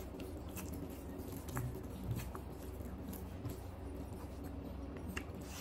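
Close-up eating sounds: a man chewing a mouthful of chicken and rice, with short wet mouth clicks scattered throughout and fingers squishing rice into curry. A steady low hum runs underneath.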